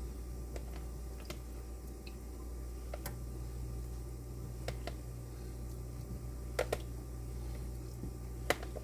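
Kitchen background: a steady low hum with a handful of light, sharp clicks and taps scattered through, two of them close together past the middle.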